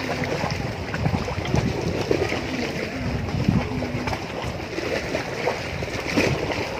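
Shallow sea water lapping and splashing against a rocky shore around a person bathing, under a steady rush of wind on the microphone, with a few brief faint voices.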